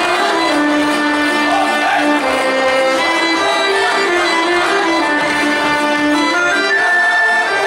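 Traditional Balkan folk music playing for a kolo circle dance, a single melody line carried over a steady accompaniment.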